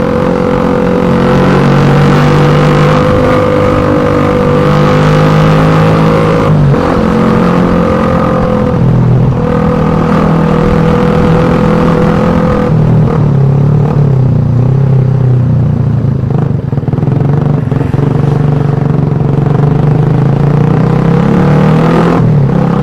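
Suzuki Satria FU 150 motorcycle's single-cylinder four-stroke engine running through its exhaust, loud and steady. Its pitch holds, then dips and picks up again several times: at about six and a half, nine and twelve and a half seconds, and near the end.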